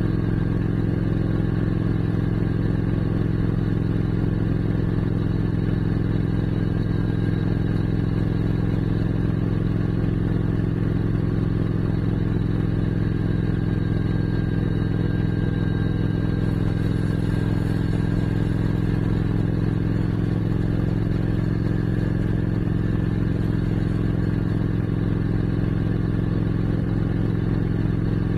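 Motorcycle engine running at a steady cruising speed on the road, its pitch holding level throughout.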